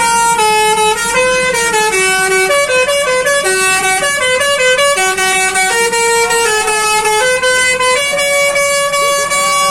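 Telolet horn, the Indonesian multi-tone bus horn, playing a tune: a continuous run of loud, brassy horn notes stepping up and down in pitch every half second or so. A few notes are held longer near the end.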